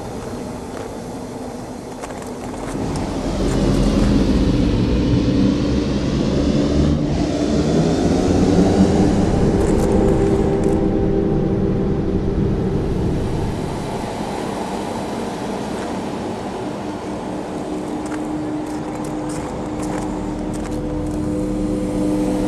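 Fire organ (pyrophone) sounding several sustained organ-like tones over a low rumbling roar. It swells louder a few seconds in and eases back after the middle, with a few scattered clicks.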